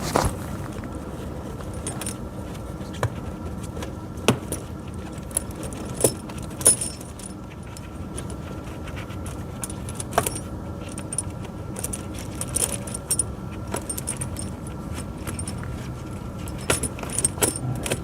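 pewag Doppelspur steel tractor tire chains being handled, the links clinking and jangling irregularly with a few sharper metallic knocks, over a steady background hum.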